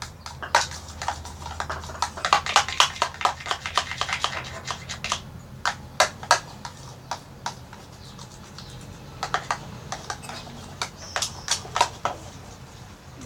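Quick, irregular clicking and tapping from mixing slime ingredients (glue and shaving foam) in a container, in two busy spells with a short lull between.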